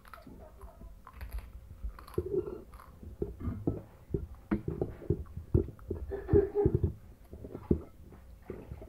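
A child chewing and biting food close to the microphone, with irregular small clicks and crunches, and a spoon now and then clinking and scraping on a ceramic plate of fried rice.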